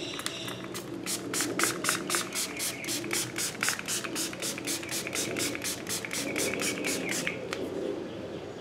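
Hand pump spray bottle of headlight surface activator being pumped rapidly: a run of short hissing sprays, about five a second, starting a second in and stopping near the end, misting liquid onto a plastic headlight lens.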